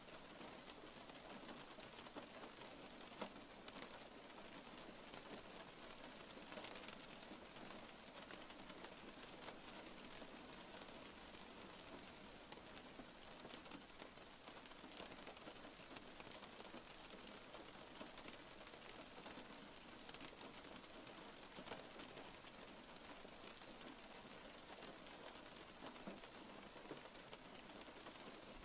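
Steady rain: a soft, even hiss with many small drop taps scattered through it.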